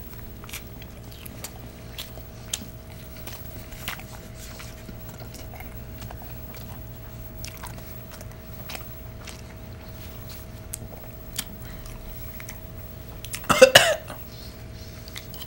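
A person chewing a big mouthful of cheeseburger, with faint wet clicks from the mouth over a steady low hum. Near the end comes a short, loud sound from the throat.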